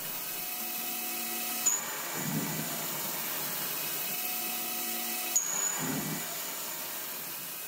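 Hercus PC200 CNC lathe parting 2011 aluminium bar with a polished carbide parting insert: a steady cutting and spindle noise with several fixed tones. Twice, about four seconds apart, a sharp tick with a brief high squeal cuts in, each followed by a short low rumble.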